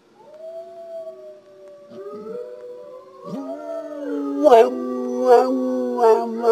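Dog howling, with several long howls at different pitches overlapping and building up about three seconds in. In the second half, short sharp cries break in about once a second.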